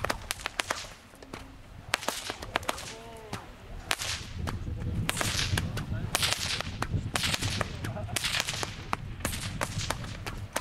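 A pair of bullwhips, one in each hand, cracked again and again in an irregular run of sharp cracks, some coming in quick pairs.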